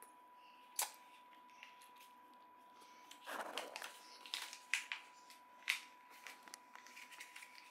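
Paper airplane crinkling as a toddler's hands handle and fold it: a sharp crackle about a second in, a burst of rustling about three seconds in, then scattered crinkles.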